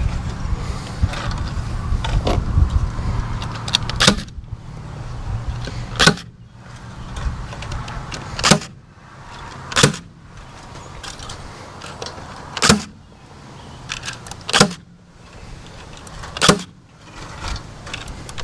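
Small power tool running with rattling for about the first four seconds, then single sharp knocks about every two seconds as work goes on at the wooden coop.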